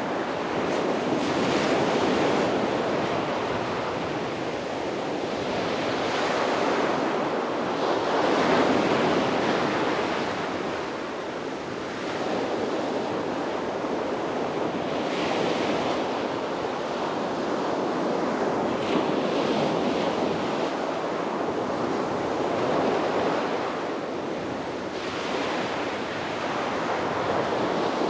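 Sea waves breaking and washing on a beach, the surf swelling and ebbing every few seconds, with some wind on the microphone.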